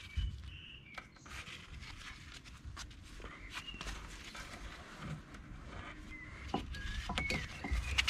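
Scattered clicks, scrapes and rustles of gloved hands working a copper wire around a brake caliper, while small birds chirp in short calls in the background.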